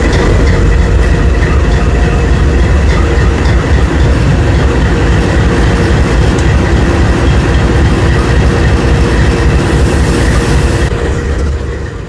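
Canadian Pacific freight train running past at speed: a loud, steady rumble with wheels clacking over the rails, fading out near the end.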